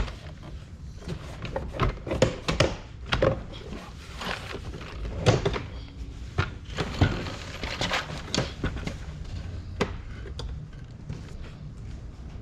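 Irregular thunks, knocks and clicks of hands working on a car door.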